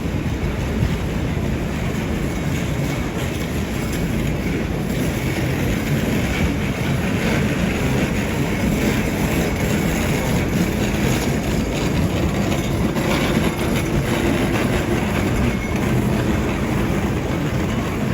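Loud, steady vehicle rumble with no separate sharp events.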